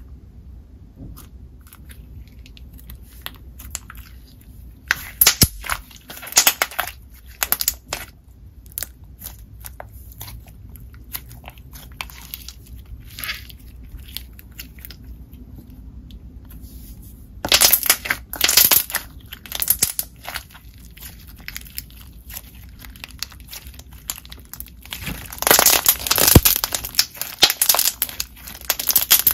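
Thick, glossy semi-floam slime with marshmallow beads being pressed, stretched and folded by hand: soft squishing and crackling with clusters of sharp bubble pops, loudest about five to eight seconds in, around eighteen seconds, and again near the end.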